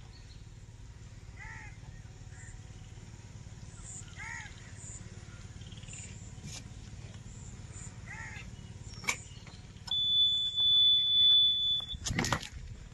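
Excavator cab warning buzzer giving one steady high electronic beep for about two seconds near the end, the loudest sound here. A brief loud rustle follows it, and a low steady hum and a few short chirps sit underneath.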